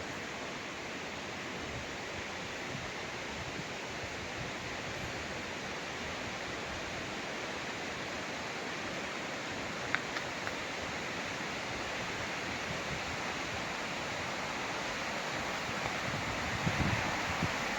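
Steady rush of a mountain stream running over rocks, getting slightly louder over the stretch, with a single sharp click about ten seconds in and a few low bumps near the end.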